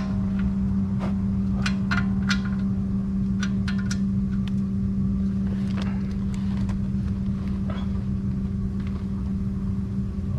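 A steady low hum, with scattered sharp clicks of hand tools working on the oil pan bolts, mostly in the first few seconds and again around six to seven seconds in.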